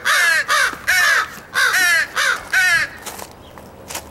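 Crows cawing: about six loud, harsh caws in quick succession, ending about three seconds in.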